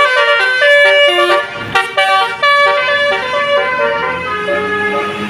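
Indonesian bus telolet horn, a multi-tone musical air horn, playing a quick tune of short notes that jump in pitch. A low steady drone joins in near the end.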